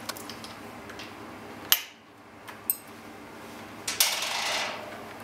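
Small metal clicks and clinks of a bicycle V-brake brake block being taken off the brake arm: a sharp click near two seconds in, another a second later, then a short rattling scrape near the end.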